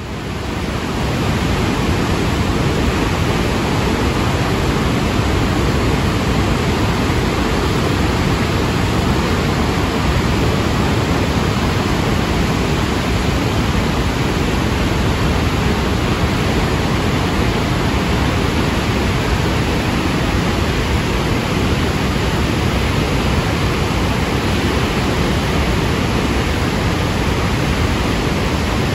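Barron Falls in flood, a huge volume of brown floodwater from heavy cyclone rainfall plunging down the cliff face, making a loud, steady roar that is heaviest in the low end. It fades in over about the first second and then holds unchanged.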